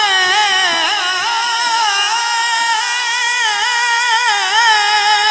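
A man's voice singing a devotional kalam into a microphone, drawing out one long ornamented vowel line whose pitch waves up and down without a break.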